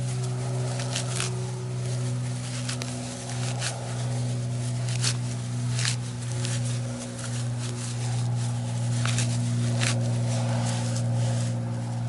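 Dry grass tinder crackling in irregular sharp snaps as it is rubbed and pulled apart between the hands, over a steady low hum.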